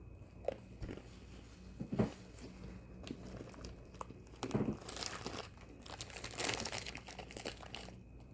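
Crunching and chewing on an Oreo cookie, with scattered small handling noises and a longer stretch of plastic wrapper crinkling partway through.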